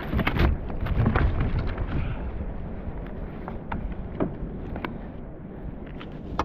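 Handling thumps and knocks on a kayak as a big, heavy snapper is held and handled after landing. The low thuds are heaviest in the first two seconds, and scattered sharp clicks follow.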